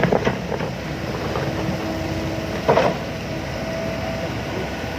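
Heavy construction machinery running steadily, with a faint steady whine over the engine noise. Two short sounds come near the start, and a louder short one a little past halfway.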